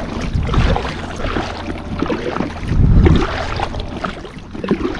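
Choppy water lapping against a kayak, with wind buffeting the microphone in low rumbling gusts, strongest about three seconds in.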